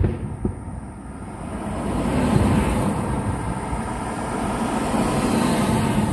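Aerial firework shells bursting: a sharp bang at the start and another about half a second in, then a continuous low rumble of bursts that swells about two seconds in and carries on.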